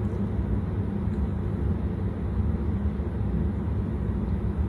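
Chicken wings deep-frying in hot oil in a pan: a steady sizzle over a low, even rumble.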